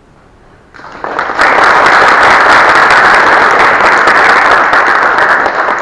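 Audience applauding, starting about a second in and quickly swelling into steady, dense clapping.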